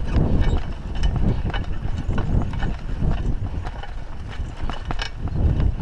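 Raleigh Ascent mountain bike riding over a bumpy dirt track: tyres rumbling and the bike rattling and clicking over the ruts, with wind buffeting the chest-mounted microphone.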